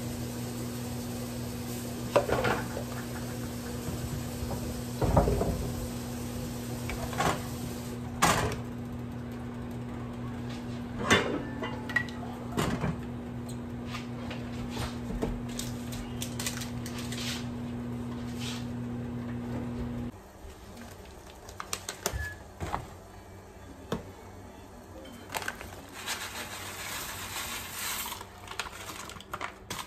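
A metal spoon and a glass pot lid knocking and clinking against a pot now and then, over a steady low hum that cuts off about two-thirds of the way through.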